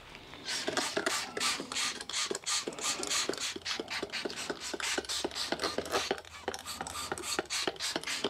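Fast back-and-forth hand rubbing on the car's painted body panel at the wheel arch, about four to five rasping strokes a second, stopping abruptly near the end.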